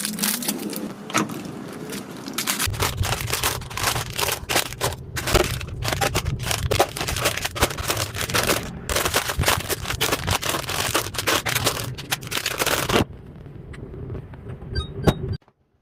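Packaged food and plastic containers being handled while a refrigerator is restocked: a dense run of clicks, taps, scrapes and crinkles, with a low hum underneath from about three seconds in. It gets quieter about thirteen seconds in and cuts off abruptly near the end.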